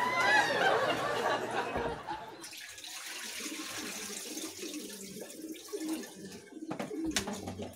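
Water sloshing and splashing in a plastic basin as fish are rinsed and the water is poured off. After about two seconds this quietens, and pigeons cooing over and over are heard, with a sharp knock near the end.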